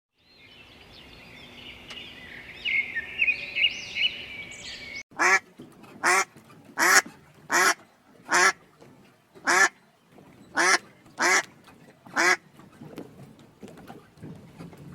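High bird chirps and peeping for about five seconds. Then, after an abrupt cut, a duck quacks about nine times in loud single quacks spaced under a second apart, and the quacking stops a few seconds before the end.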